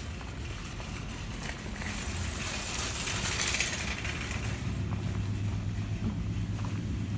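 A vehicle passing in a parking lot, its tyre and engine noise swelling and fading about two to four seconds in, over a low steady hum.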